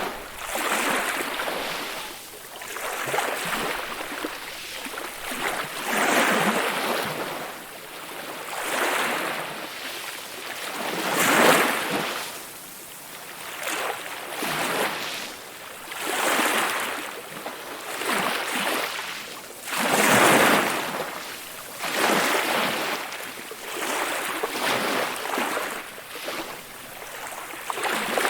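Small ocean waves breaking and washing on the shore, each swell of surf rising and falling every two to three seconds, two of them louder than the rest.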